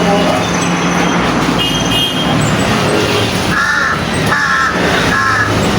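Crow cawing three times in quick succession in the second half, each call short and harsh, over a steady low rumble of background noise.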